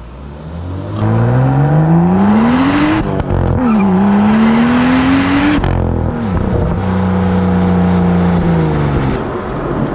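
BMW M2's turbocharged N55 straight-six at full throttle: the revs climb for about two seconds, dip briefly at a gear change, and climb again. The throttle then closes a little past halfway, and the engine holds steady revs for a couple of seconds before falling away near the end.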